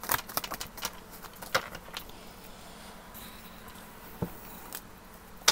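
Quiet room tone with scattered light clicks and taps, the sharpest near the end.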